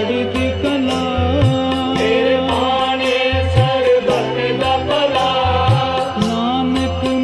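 Devotional jaap: a repeated mantra chanted to music, with a steady percussion beat and a low bass note about once a second.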